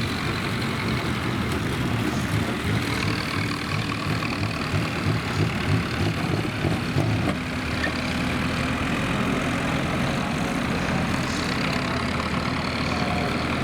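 Banger racing car engines running, rough and uneven at first, then settling into a steadier idle about halfway through.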